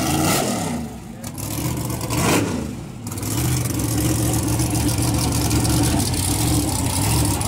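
Chevy pickup's drag-race engine revved in a few quick blips, each rising and falling in pitch, then settling into a steady run from about three seconds in.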